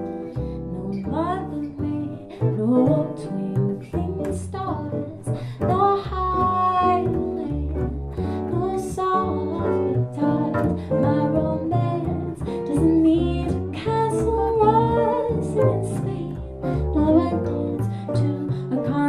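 Jazz trio: a woman singing into a microphone over an archtop guitar and a plucked upright double bass.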